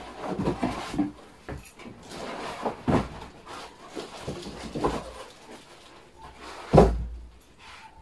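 Moulded cardboard packaging insert and plastic-wrapped parts being lifted out of a box and set down: rustling and scraping, several knocks, and one heavier thump near the end.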